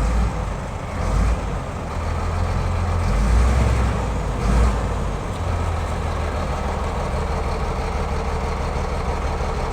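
Heavy equipment engine running, with louder surges of effort in the first half, then settling into a steady run.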